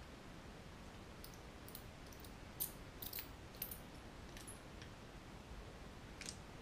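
A scatter of light clicks and taps from handling a model locomotive's plastic motor bogie and a small screwdriver, with most of them between about one and five seconds in and one more near the end.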